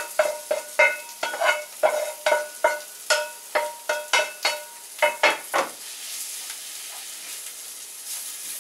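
Wooden spatula scraping and knocking against a frying pan, about three knocks a second, each leaving the pan briefly ringing, as fried onion is scraped into a pan of spinach. After about six seconds the knocks stop and a soft frying sizzle remains.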